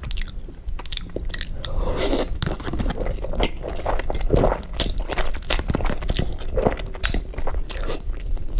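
A person biting and chewing crunchy food close to the microphone, with a rapid, irregular series of crunches.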